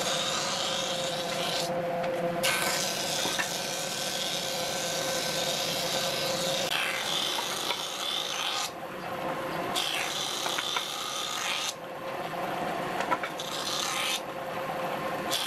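Combination jointer-thickness planer running and planing a wooden board: a steady motor hum under a loud rushing cutting noise from the cutterhead, which breaks off and comes back about four times as the stock passes through.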